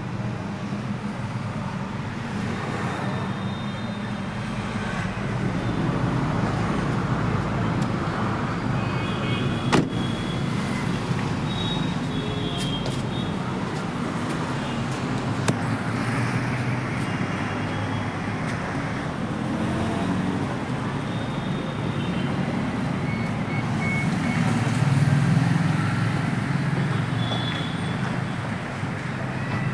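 Steady vehicle and road-traffic noise, swelling slightly now and then, with two sharp clicks, one about ten seconds in and one about fifteen seconds in.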